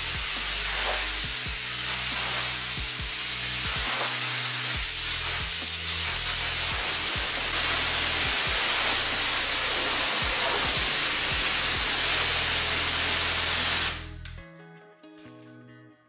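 Water jet from a hose-fed spray lance hissing onto a rug and tiled floor as the rug is rinsed. It cuts off suddenly near the end, leaving soft background guitar music.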